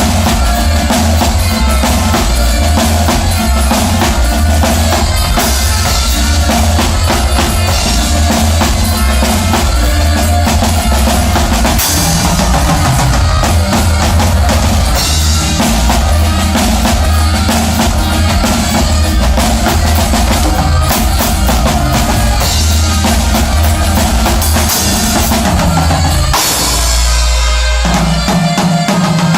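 A band playing loud music with a drum kit and a strong bass line. Near the end the drums stop briefly under a held bass note, then the band comes back in.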